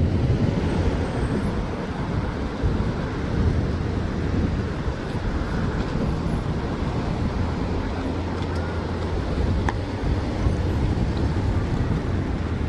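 A steady low engine rumble with wind noise on the microphone.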